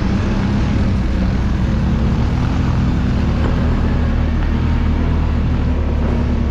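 CFMoto CForce 1000 ATV's V-twin engine running at a steady speed, over a continuous hiss of wind and riding noise.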